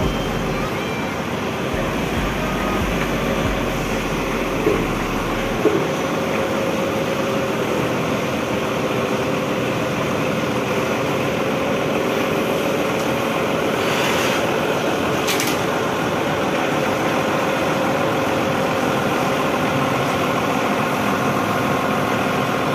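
Truck engine running steadily, with two short knocks about five seconds in and a brief hiss a little past the middle.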